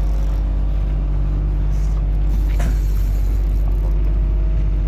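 Fishing boat's engine idling with a steady low drone.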